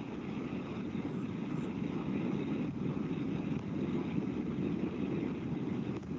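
Steady low rumbling noise coming through a video call's audio, with no voice over it: an unwanted background noise on the line.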